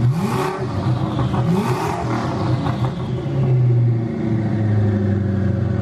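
Twin-turbocharged V8 of an 850 hp Ford GT blipped twice in quick succession, each rev rising and falling with a hiss on top, then settling back to a steady idle.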